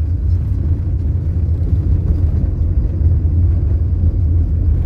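Steady low rumble of road and engine noise heard from inside a moving vehicle.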